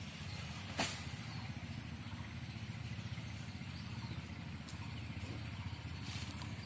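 A steady low rumble, with one sharp knock just under a second in.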